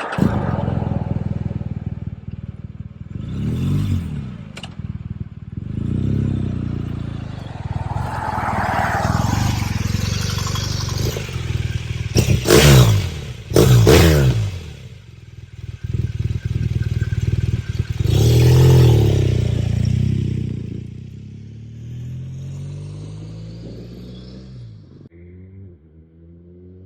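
BMW R1200GS boxer-twin engine breathing through an Akrapovic slip-on silencer, accelerating and easing off in repeated surges. It revs hardest twice in quick succession around the middle, then slows with falling pitch and fades near the end.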